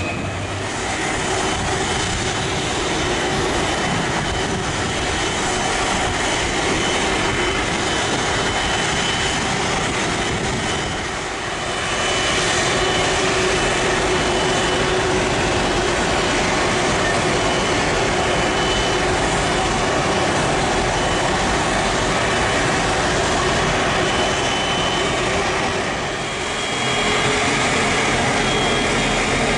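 Jet engines of a Lion Air Airbus A330 running at taxi power: a steady loud rush with a thin high tone over it. The level dips briefly twice.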